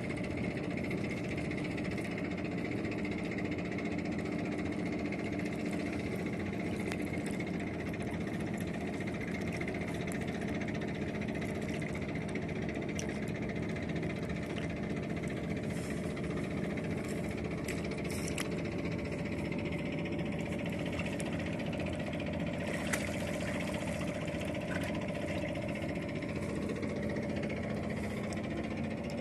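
An engine running steadily at one even pitch, with a few faint clicks over it.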